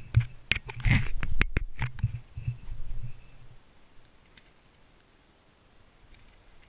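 Handling noise from a small camera being moved and set at a window: a quick run of knocks, clicks and rubbing over a low rumble. It dies away after about three seconds to near quiet, with a few faint ticks.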